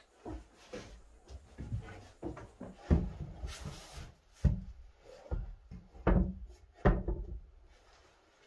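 A string of irregular knocks and clatters of objects being handled, the loudest about three, four and a half, six and seven seconds in, with a short rustle between the first two.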